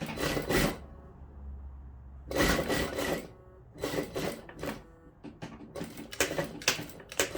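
Invisible dress zip being pulled along its teeth, four short rasps of the slider running over the coil.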